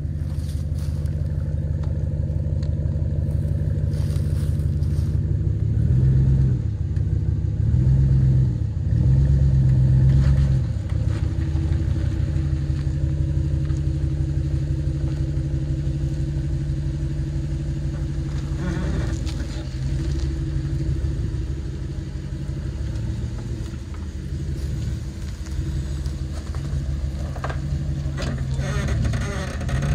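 Off-road vehicle's engine running steadily as it crawls a rough trail, with three short surges in revs between about six and eleven seconds in.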